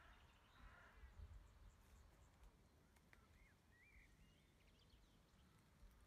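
Near silence: faint outdoor ambience with a low rumble and a few faint bird chirps about halfway through.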